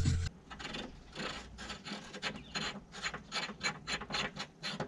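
Metal clicking and scraping in quick, irregular bursts, several a second, as a tubular rose-joint wishbone is handled and worked into its mounting brackets on the car's front subframe.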